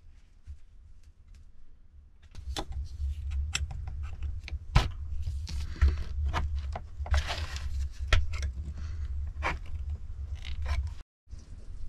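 A tin can being cut open with a blade: a run of sharp metal clicks and knocks, with scraping as the blade works around the lid, over a low steady rumble.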